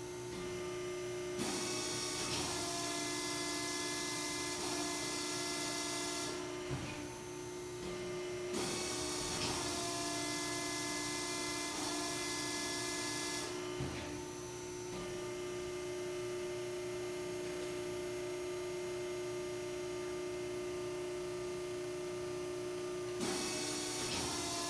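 Hydraulic power unit of a 1997 Wysong 100-ton CNC press brake running with a steady hum, joined by a loud hiss that comes on and cuts off in spells of about five seconds as the ram is cycled, with faint clicks where it switches.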